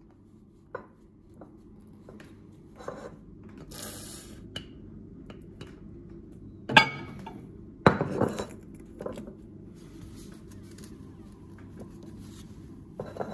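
Glass bottle of molten LB agar clinking and knocking as it is handled at the microwave and lifted out, with scattered light clicks and two loud sharp knocks about a second apart in the middle.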